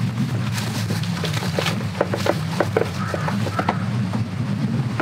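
A scatter of light clicks and taps, like tableware and utensils being handled on a camp table, over a steady low hum.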